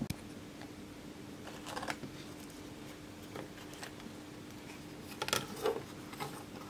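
Handling noise as a bare printed circuit board is picked up off a wooden table and turned over in the hand: two short spells of soft scraping and rustling, about a second and a half in and again near the end, over a steady low hum.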